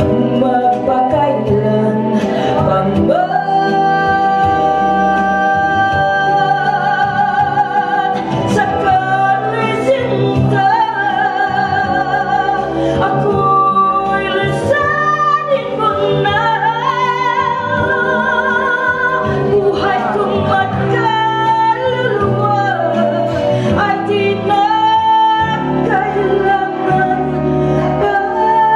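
A woman singing a ballad into a microphone over backing music, holding long notes with vibrato.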